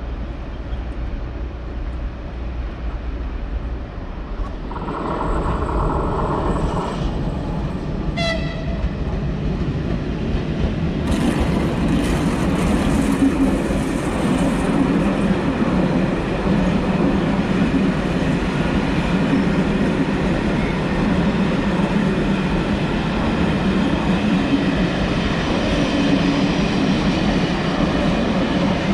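A train in a station: a short horn blast about five seconds in, then the train's running rumble gets louder about eleven seconds in and stays steady as it rolls along the platform.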